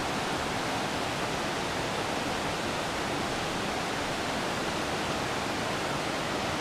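Fast, deep river current rushing steadily over cascades.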